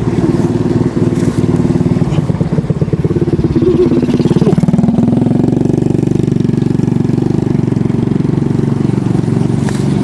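An engine running steadily and loud, its note changing about halfway through.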